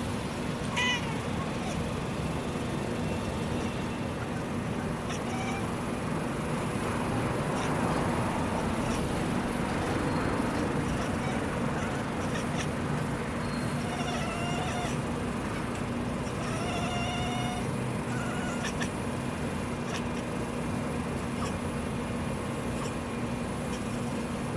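Black and white domestic cat chirping at birds: short, high, bird-like chirps and chatters in scattered clusters, over a steady low background rumble.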